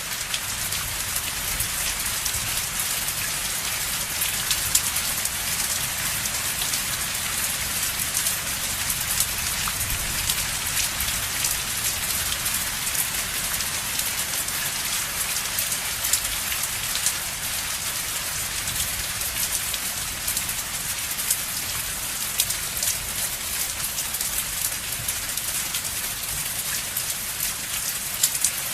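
Steady rain falling on a surface, a dense patter of individual drops hitting over an even hiss.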